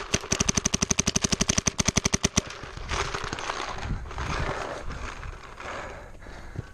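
Paintball marker firing a rapid string of shots, about a dozen a second, for roughly two and a half seconds, then stopping.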